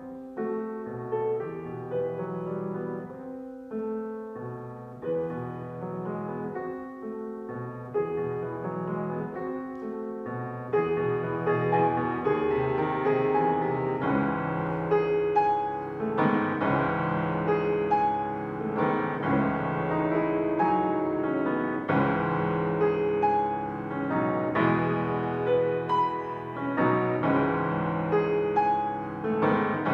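Solo grand piano playing, softer at first and growing louder about ten seconds in.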